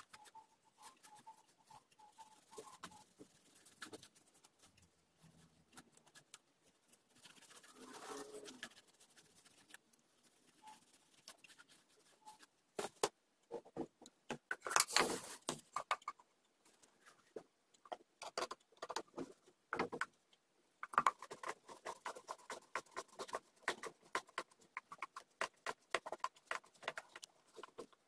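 Small hand screwdriver driving tiny screws through small hinges into a wooden box lid: scattered clicks and scrapes of the tool and the wood being handled. There is a louder scraping flurry around the middle and a long run of small creaking ticks near the end as a screw is turned in.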